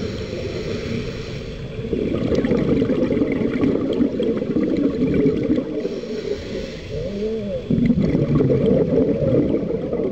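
Scuba diver's breathing heard underwater: a hiss from the regulator on each inhalation, then a long gurgle of exhaled bubbles, twice, with a brief wavering tone about seven seconds in.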